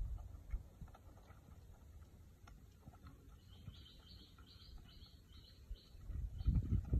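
Young wild boar feeding on bait on the ground: low chewing, crunching and snuffling, growing louder near the end. Midway a bird calls a run of about eight short high chirps.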